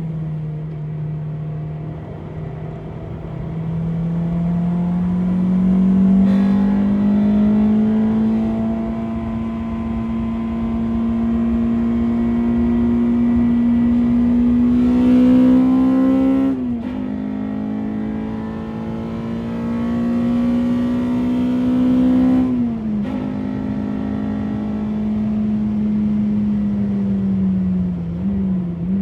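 Honda Civic EP3's K20A2 inline-four engine pulling hard on track, its pitch climbing slowly through the revs, with two sharp drops at upshifts about halfway and three quarters of the way in, then revs falling off near the end.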